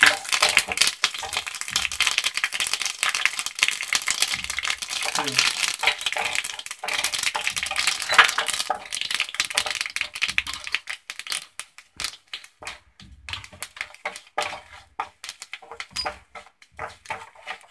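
Mustard seeds, dried red chillies and curry leaves sizzling and spluttering in hot oil for a tadka, a dense fast crackle. It thins out about halfway through to scattered separate pops.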